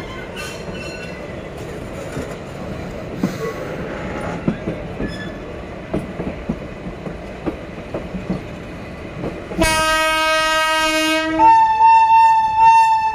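Passenger train rolling slowly over the rails, with a steady rumble and scattered wheel clicks. About ten seconds in, a locomotive horn sounds loudly: one tone held for nearly two seconds, then a higher tone.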